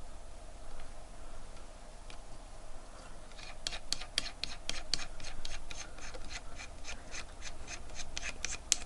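Rapid, even clicking, about five clicks a second, as a knurled knob on a bench watch case-back opener is turned to tighten the tool down onto the case back, starting a few seconds in after some soft handling noise.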